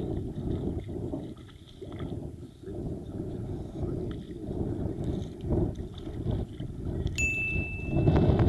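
Wind buffeting the microphone, with water sloshing against a small boat. About seven seconds in, a click followed by a short, steady high beep.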